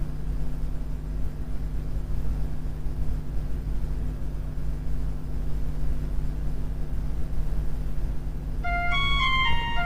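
Low steady hum with a light hiss. Near the end, a quick run of short high notes steps downward, opening a karaoke backing track.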